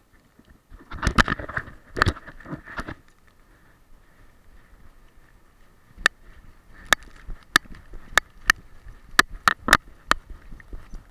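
A boxer dog running with an action camera on her harness. About a second in there is a burst of loud knocks and rattles, then sharp clicks come at an uneven pace of one to three a second.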